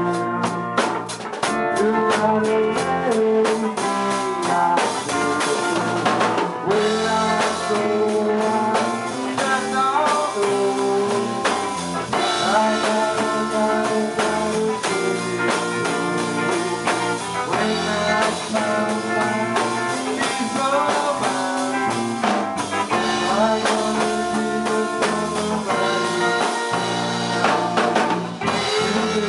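Rock band playing live: electric guitar, electric bass and drum kit, with a lead voice at the microphone.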